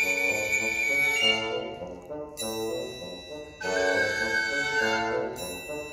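Live chamber trio of violin, bassoon and recorder playing held, overlapping notes in phrases, with brief breaks about two seconds in and again past the middle, and a new phrase entering near the end.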